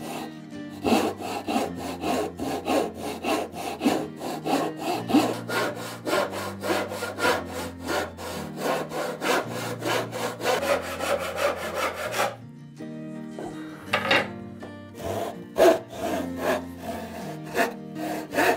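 A back saw cutting across a wooden board by hand, with quick, even strokes several times a second. The sawing stops about twelve seconds in, then a few more strokes follow toward the end. Soft background music with low notes plays underneath.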